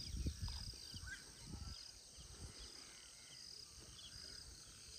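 Faint rural evening ambience: short high chirps repeat throughout, from small animals such as birds or insects, with a few lower chirps about a second in. Low rumbling on the microphone during the first two seconds.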